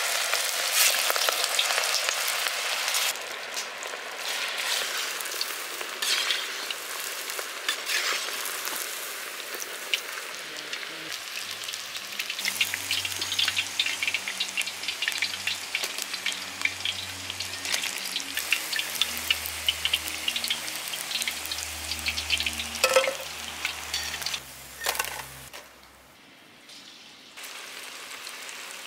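Batter-coated stingray strips deep-frying in hot oil, a dense steady crackle and sizzle. A couple of sharp knocks are heard near the end.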